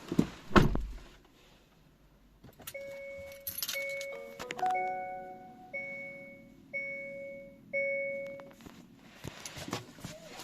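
Hyundai Ioniq 5 warning chime: a two-note electronic ding repeating about once a second, six times, with a short chord of lower tones overlapping it partway through, sounding while the car will not start. Two sharp knocks come just before it, near the start.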